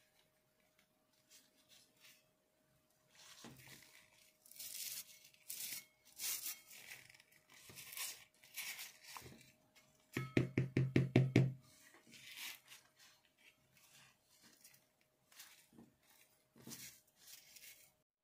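Gloved hands handling and rubbing a rusty steel putty knife on a rubber work mat, making short scattered scrapes and rustles. A fast run of about ten loud knocks comes a little past the middle. A faint steady hum sits underneath.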